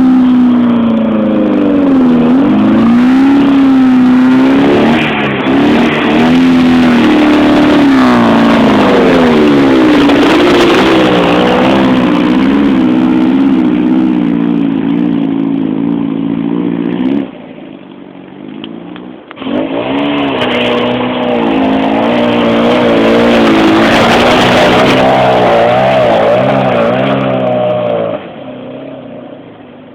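Trials car engine revving hard, its pitch rising and falling as the car works up the section, cutting off suddenly about seventeen seconds in. A couple of seconds later an engine revs hard again, climbing higher in pitch, and drops away a couple of seconds before the end.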